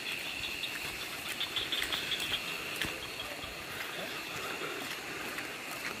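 Crickets or similar insects chirring: a steady high trill pulsing several times a second, over a soft even hiss.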